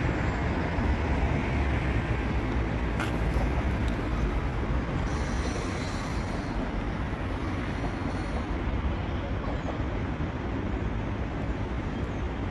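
Steady rumble of road traffic and a light-rail train running on the track, with no clear single event.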